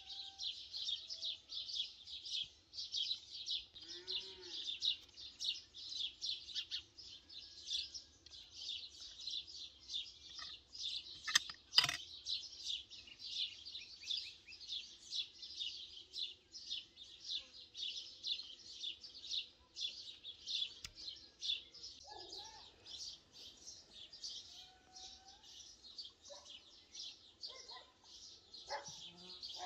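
Birds chirping rapidly and without pause, a dense high-pitched chatter. A single sharp click about halfway through is the loudest sound.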